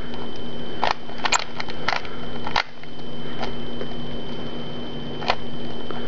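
Plastic 3x3x3 Rubik's cube having its layers turned by hand, giving a series of irregular sharp clicks, several close together in the first half and a last one about five seconds in, over a steady electrical hum.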